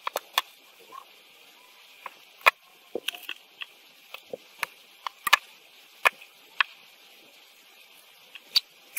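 Irregular sharp clicks and small taps, a few louder than the rest, from hand work at close range: wires, tools and the circuit board being handled while wires are soldered onto a car stereo's board.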